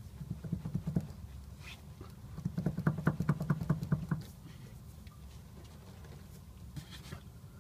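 Plaza aftermarket shock absorbers on a Hyundai Solaris knocking in two quick runs of sharp knocks, about six a second, the second run longer and louder. The uploader puts the knock down to the shock absorbers after about 3,000 km of use.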